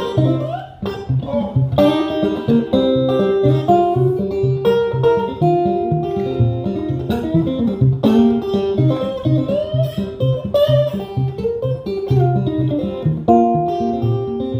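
Solo acoustic guitar playing an instrumental passage with slide, melody notes gliding in pitch over a steady picked bass line.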